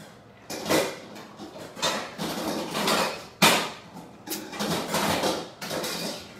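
Kitchen clatter of pots, pans and utensils on a hob, with a metal lid being handled on the pasta pot. There is a sharp clank about three and a half seconds in.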